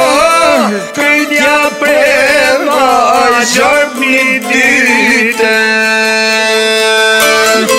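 Albanian folk music on çifteli and sharki, plucked long-necked lutes: a melody with wavering ornaments over a steady drone.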